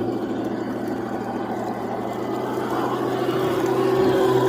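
Steady engine running with a low hum and a rushing haze over it, growing slightly louder toward the end: a tank engine sound effect for the toy tank.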